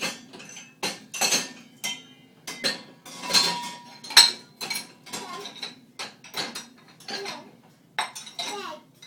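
Dishes and cutlery clattering and clinking as they are taken out of a dishwasher, in an irregular string of knocks, with one short ringing clink about three seconds in.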